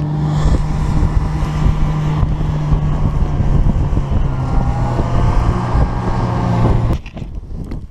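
Snowmobile engine running steadily while under way, with a constant low hum. It starts abruptly and cuts off about a second before the end.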